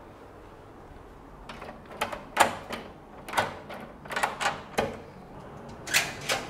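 Irregular knocks and clicks of a door being unlatched and opened, starting about a second and a half in.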